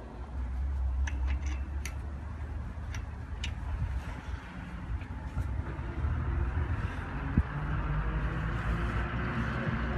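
Metal fence clips being worked onto a steel post and mesh panel: a few light clicks, then one sharp click about seven and a half seconds in, over a steady low rumble.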